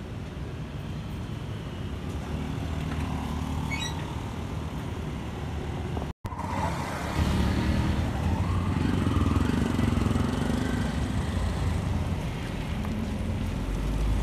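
Street traffic: cars and motorbikes passing on a road, with a steady engine rumble that grows louder in the second half as vehicles go by close.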